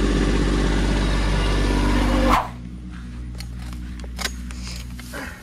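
Compact tractor engine running steadily at idle, cut off abruptly about two and a half seconds in; then quieter rustling in tall grass with a few light clicks and rattles from a man working old barbed wire off a steel fence post.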